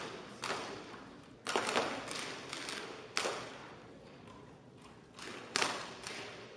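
BB guns firing along a competition firing line, likely Daisy 499B Champion spring-air rifles: about seven sharp shots at uneven intervals, some close together, each echoing in a large hall.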